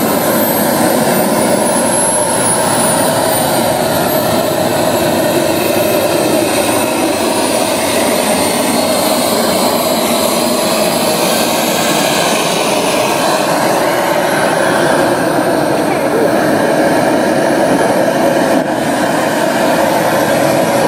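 Jet engine of a radio-controlled MiG-15 (Lim-1) model running while the model taxis. It makes a steady loud rush with a thin high whine that rises and falls several times.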